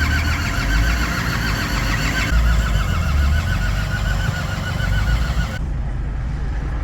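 Land Rover Defender's diesel engine being cranked over by its starter motor in −30 °C cold, a pulsing, labouring rhythm that does not catch: the frozen engine failing to start.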